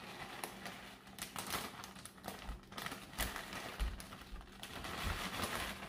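Plastic bag of shredded cheese crinkling and crackling in irregular little clicks as it is shaken out over a pan.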